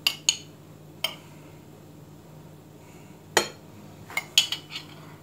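A metal spoon clinking against a glass jar and a plate while ketchup is spooned out: a few separate clinks in the first second, a sharper one past the middle, and a quick run of clinks near the end.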